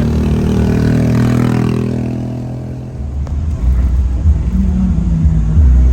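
Car engine running as the car drives, its tone fading away after about two seconds. From about three seconds in, low rumbling with uneven thumps takes over.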